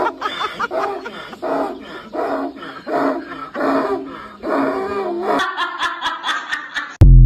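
A person imitating animal calls with the voice: a run of short, pitched, repeated calls about two a second. Near the end come a few sharp clicks and a sudden loud burst.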